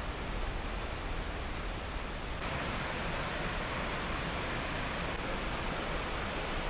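Steady rushing of a shallow, rocky river flowing over stones.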